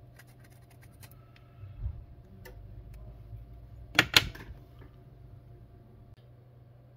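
Handling noise from work on a phone's display assembly: a few faint clicks and taps, a soft bump about two seconds in, and two sharp clicks in quick succession about four seconds in, over a steady low hum.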